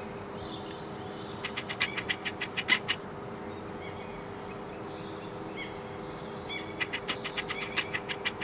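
Eurasian magpie chattering: two runs of rapid harsh rattling calls at about seven a second, one about a second and a half in and the other near the end.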